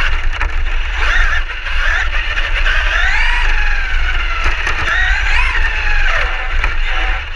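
Traxxas E-Revo RC truck's electric motor and drivetrain whining, the pitch rising and falling as the throttle and speed change, over a steady low rumble.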